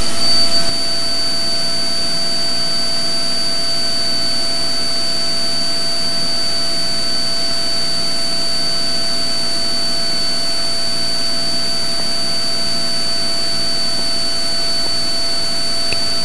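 Cabin noise of a Cessna T182T's turbocharged 540 cubic inch Lycoming engine and propeller in the initial climb after takeoff: a steady drone with a constant high whine on top.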